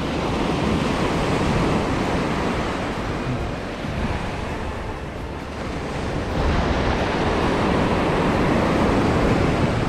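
Ocean surf breaking and rushing up the beach in two surges, the second starting about six seconds in, over a low steady rumble.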